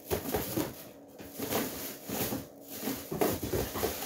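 Packaging rustling and being shuffled about as items are handled and sorted, in several irregular bursts of crinkling and scuffing.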